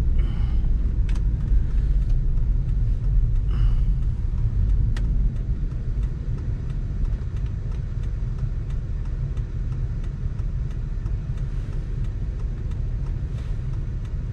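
Steady low rumble of a vehicle's engine and tyres heard from inside the cabin while driving on snow-covered roads, with a few faint clicks; it eases slightly about five seconds in.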